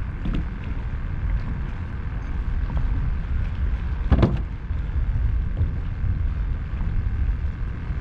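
Wind buffeting the microphone as a steady low rumble, with a faint steady whine above it and a single short knock about four seconds in.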